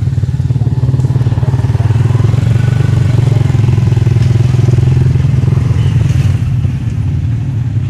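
Motorcycle engine running steadily and close by, a loud, even low drone with a rapid firing pulse.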